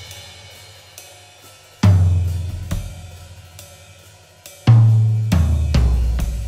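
Drum kit playing a slow, spacious rock groove: heavy low drum strokes about two seconds in and again near five seconds, each left to ring and fade, with smaller hits between and a ringing wash of cymbal and hi-hat over them.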